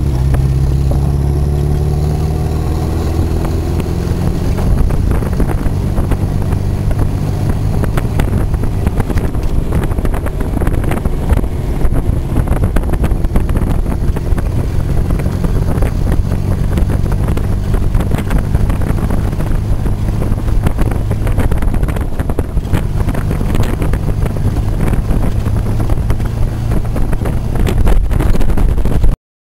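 Mini Scamp kit car's engine running as it is driven, with wind noise on the microphone. The engine note falls over the first few seconds, then holds fairly steady, and the sound cuts off abruptly near the end.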